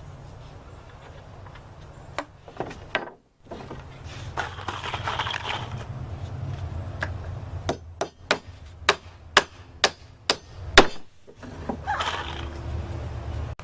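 Hammer blows on wooden decking: a few strikes, then a quick run of about seven sharp blows roughly two a second, the last one the loudest.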